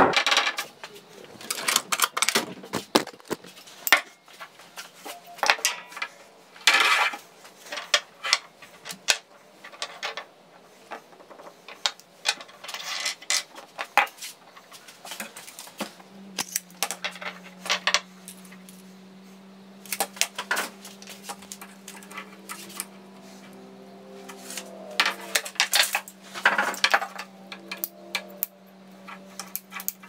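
White PVC pipe fittings and pipe knocking and clattering on a wooden workbench as they are picked up and set down, in many irregular sharp clicks and knocks. A steady low hum comes in about halfway through.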